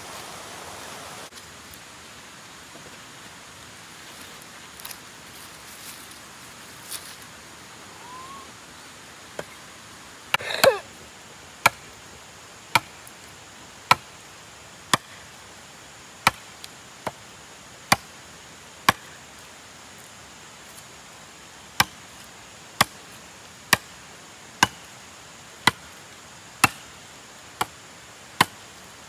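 Sharp chopping strikes from a hand blade or tool, about one a second, starting about a third of the way in. They break off for a few seconds just past the middle, then resume at the same pace.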